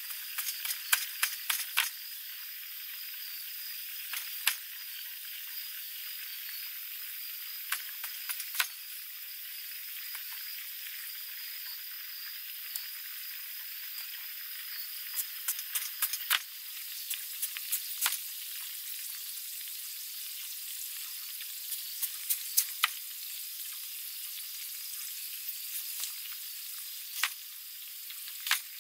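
Knife slicing raw potatoes on a round wooden cutting board: sharp taps as the blade goes through and meets the board, in irregular clusters, over a steady high hiss.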